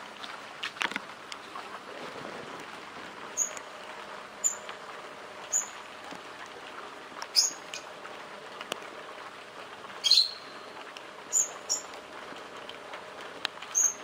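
Light rain pattering steadily on grapevine leaves, with about eight sharp, high ticks landing close by at uneven intervals of a second or two, the loudest about ten seconds in.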